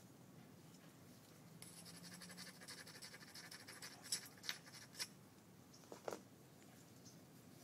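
Obsidian being worked with a copper bopper: a few seconds of fine scratchy scraping on the stone's edge, then three sharp clicks of flakes coming off, and one more click with a brief ring later on.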